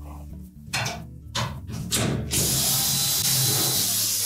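Cordless drill-driver backing out a hex-head screw from a front-load washer's lower access panel: a few short spurts of the motor, then a steady run from about two seconds in.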